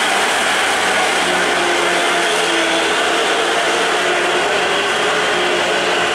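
Heavy diesel traffic on a steep uphill grade: a Hino coach and a tanker truck running their engines under load, a loud steady drone with faint engine tones in it.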